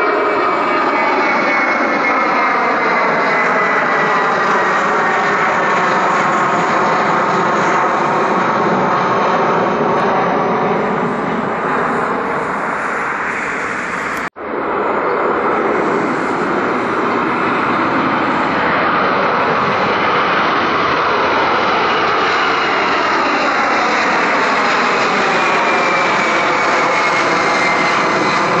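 Twin-engine jet airliners climbing out after takeoff: a loud, steady rush of jet engine noise with a thin whine that slides down in pitch as the jet passes. The sound cuts off abruptly about halfway through, then a second airliner's climb-out takes over, its whine also falling near the end.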